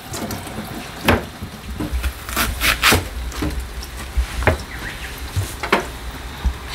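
Kitchen knife working on an onion on a wooden cutting board: a handful of separate, irregular knocks with soft rubbing and handling noise between them.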